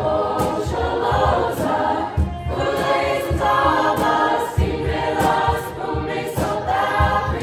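A choir singing in held phrases over a steady low beat.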